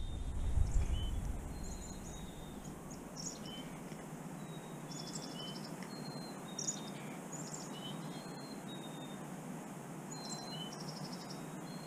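Chickadees calling: a scatter of short, high whistled notes and buzzy chirps over a steady background hiss, with a brief low rumble about a second in.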